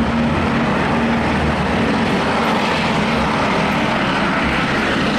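Light single-engine turbine helicopter hovering low: steady rotor and turbine noise with a constant low hum.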